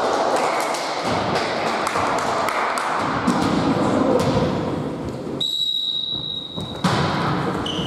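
Echoing sports hall during a volleyball match: scattered thuds and taps of the ball and players' feet on the court. Shortly after midway the hall sound drops away for over a second, then a sharp thud.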